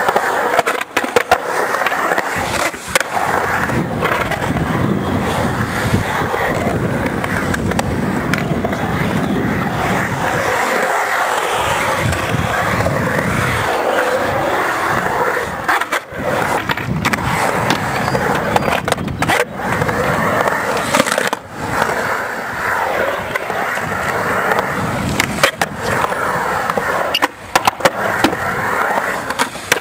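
Skateboard wheels rolling on the concrete of a bowl, a continuous rumble that rises and falls as the skater carves the transitions, with a few sharp clacks of the board and trucks near the start and again near the end.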